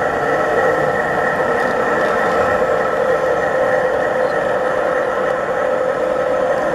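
Gauge 1 (1:32) model freight train with several diesel locomotives running slowly past, a steady, even mechanical hum.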